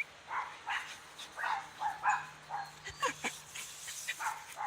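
A dog barking in a string of short barks, roughly two a second.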